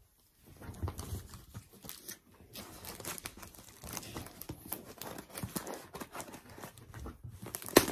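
Packaging being torn open and crinkled by hand: irregular rustling and crackling, with a sharper, louder crackle near the end.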